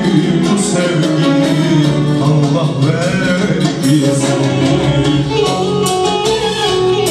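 Live band music for a slow dance, led by an electronic keyboard, with a singer's voice over it.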